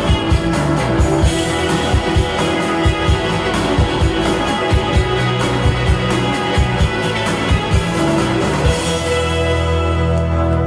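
Closing bars of a 1980s new wave pop-rock song: full band with a steady drum beat and guitar. The drums stop about nine seconds in, leaving a held chord ringing out.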